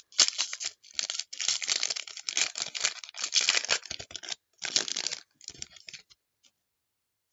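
Trading card pack wrapper crinkling and tearing while the cards are handled and flicked through, a run of short scratchy rustles that stops about six seconds in.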